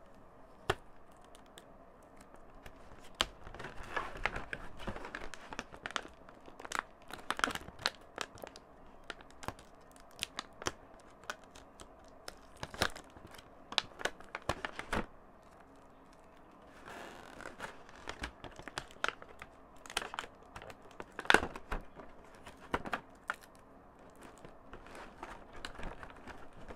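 Clear plastic film being peeled and torn off a moulded plastic toy tray: crinkling and crackling, with many sharp snaps and clicks in uneven bursts.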